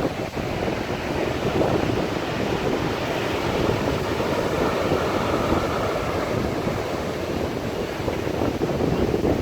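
Strong wind buffeting the microphone in a steady rushing roar, with storm waves breaking and churning.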